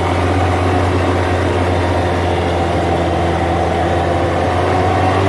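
Engine of a side-by-side utility vehicle running at a steady speed while driving, heard from inside its enclosed cab as a constant low drone that holds one pitch throughout.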